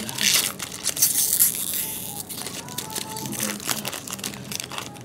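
Foil trading-card pack wrapper being torn open and crinkled by hand: a run of crackling rustles, loudest in the first two seconds and thinning out after.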